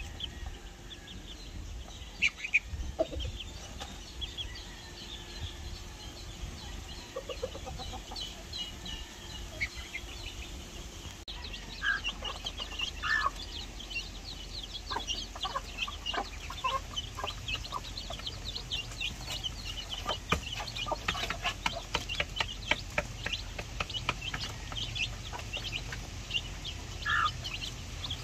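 Free-range backyard chickens clucking, with a steady chatter of short high chirps that becomes much denser about a third of the way through.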